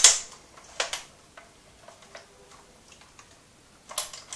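Cybergun M249 Para airsoft light machine gun being handled, its parts giving sharp clicks and knocks: a loud click at the start, another just under a second in, a few faint ticks, then another click near the end.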